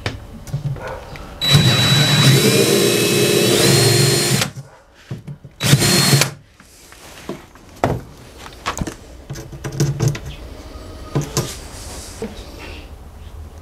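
Cordless drill boring out a stripped hinge-screw hole in a wooden cabinet side, widening it to take a dowel. The first run lasts about three seconds, its whine rising in pitch as the motor speeds up, and a second short burst follows about a second later. Light knocks and clicks of handling come after.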